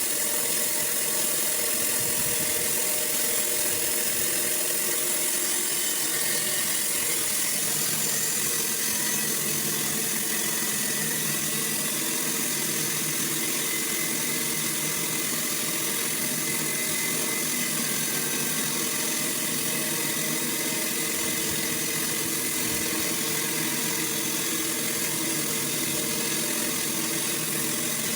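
Sawmill running steadily, a continuous mechanical drone with a high hiss and no pauses.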